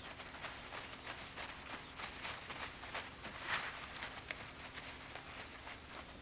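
Quick, irregular patter of running footfalls as a cheetah chases down a Thomson's gazelle on dry ground, over a steady hiss.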